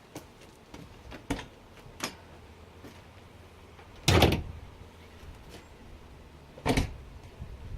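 A few light clicks, then two heavy clunks about two and a half seconds apart, from a 4th-gen Trans Am's latches and panels as its hood is popped open.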